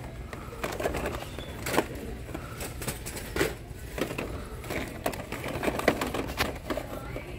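Shop ambience: a steady low hum with scattered irregular clicks and knocks.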